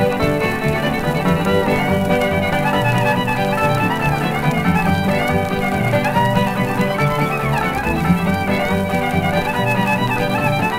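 Old-time hillbilly string band playing an instrumental fiddle tune from a 78 rpm Okeh record, the fiddle leading over guitar accompaniment.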